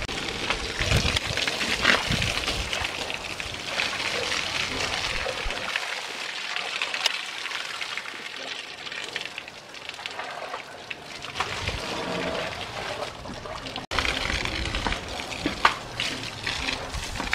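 Water from a hose spraying and splashing onto an elephant's hide: a steady hiss of spray with splashing and dripping.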